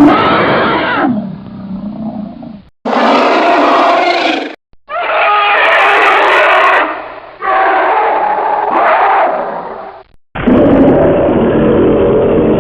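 Dinosaur-monster roar sound effects: a string of separate loud roars and growls played back to back, each starting and cutting off abruptly. One roar is already running at the start and ends about two and a half seconds in. New ones begin near 3, 5, 7½ and 10½ seconds, and the last runs past the end.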